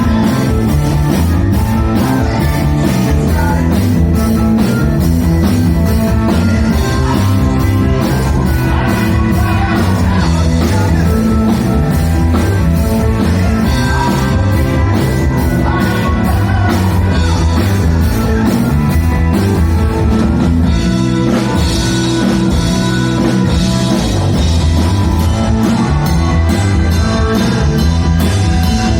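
Rock band playing live: a steady drum beat under guitar and bass, with singing.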